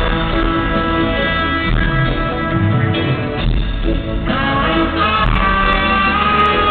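Live band music from a reggae group in concert, heard from the audience: steady, loud instrumental playing with guitar and little or no singing.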